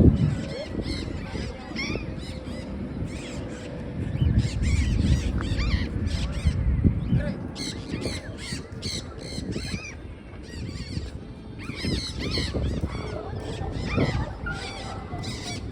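Free-flying parrots, mini macaws and conures, giving many short calls one after another in quick succession, over a steady low rumbling noise.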